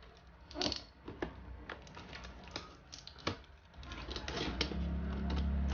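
Toy box and its packaging being opened and handled: irregular light clicks and rustles, with a low steady rumble coming in near the end.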